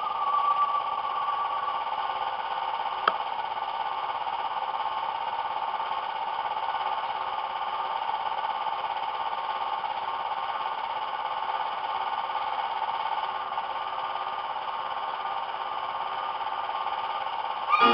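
A steady drone of several held tones, with one sharp click about three seconds in.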